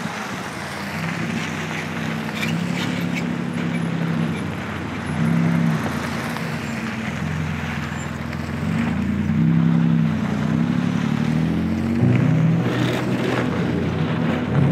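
Mitsubishi Montero 4x4s driving past on a dirt road, engine running and tyre noise swelling as they go by, under background music with held low notes.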